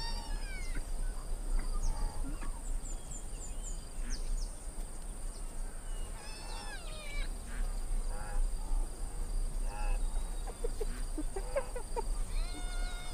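Spotted hyena cubs giving short, high, arching squeals and whines several times while playing with an adult, with a few tiny high chirps and a steady faint high hiss behind.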